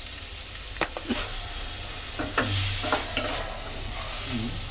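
Vegetables sizzling as they fry in oil in a steel kadhai, stirred with a steel spoon that clinks and scrapes against the pan several times.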